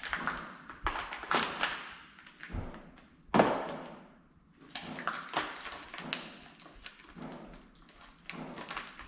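Irregular taps, clicks and knocks of RotoPax mount parts and their bolts being handled and set down, with one louder knock about three and a half seconds in.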